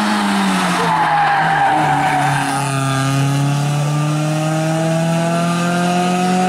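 FSO Polonez Caro rally car passing close and pulling away. Its engine note falls as it goes by, with a brief tyre squeal, then climbs steadily as it accelerates up the road.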